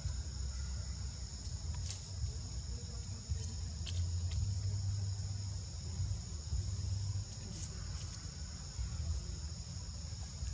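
Steady high-pitched insect chorus, two even tones held throughout, over a low rumble, with a few faint clicks.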